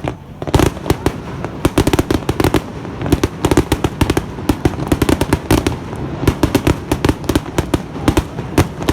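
Fireworks going off close by in a rapid barrage: a dense run of sharp bangs and crackles, many a second, starting about half a second in.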